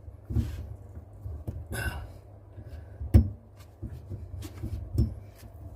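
Rotary pipe cutter being worked around a 15 mm copper pipe: irregular clicks and knocks of metal on metal, the sharpest about three seconds in and another near five seconds, with a short scrape a little before two seconds.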